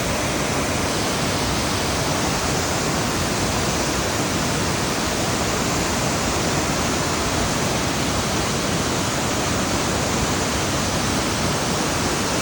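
A waterfall's steady rush of falling water, loud and unbroken.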